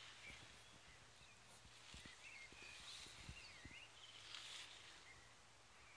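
Near silence outdoors: faint, scattered bird chirps, with a few soft low thumps and a faint steady low hum underneath.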